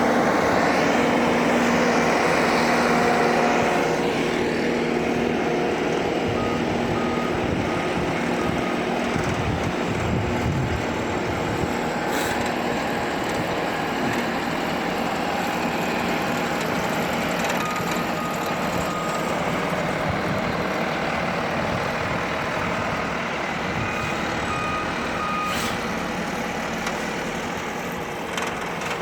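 Heavy diesel rail vehicle running steadily, with a backup alarm beeping in short runs several times.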